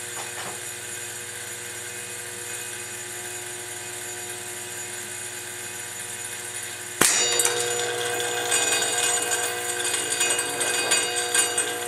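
An uncovered 300GB Seagate hard drive spinning with a steady whine. About seven seconds in, an airgun pellet strikes it with one sharp crack. It keeps spinning after that, louder and rougher, with an uneven noise from the damaged platter.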